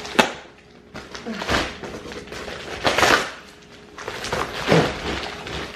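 Several short clatters and rustles of handling, about four in all and strongest about three seconds in, as a stainless steel sink grid is taken out of its packaging and handled.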